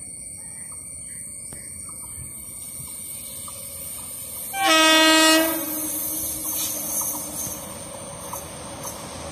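An electric locomotive sounds one horn blast, about a second long, about halfway in. The rumble of the approaching train on the rails then grows louder toward the end.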